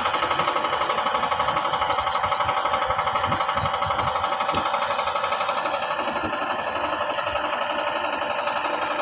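Yamaha 15 hp outboard motor running steadily under load, pushing a boat laden with coconuts, with a fast, even pulsing beat.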